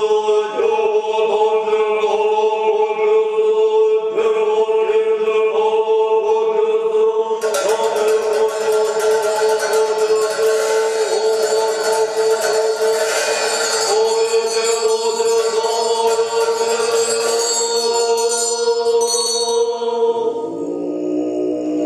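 Tibetan Buddhist monks' ritual chant and music: a steady held note with a bright shimmering layer joining about seven seconds in. Near the end it drops to a deeper, lower pitch.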